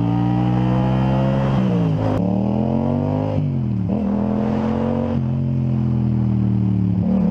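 Motorcycle engine running under way, heard from the rider's position. The engine note sinks twice as the revs drop, about two seconds in and again near four seconds, then climbs back each time as it pulls away.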